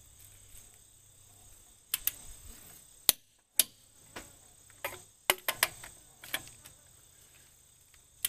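Click-type torque wrench on wheel lug nuts, giving about ten sharp single clicks at irregular intervals as each nut reaches the set torque.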